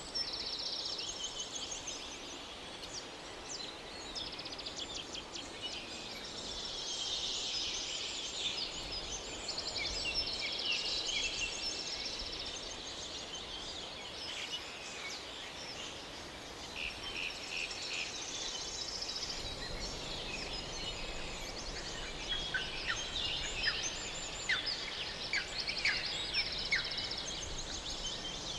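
Animal calls outdoors: many high chirps and fast buzzing trills overlapping, swelling and fading in waves, over a low steady background hiss.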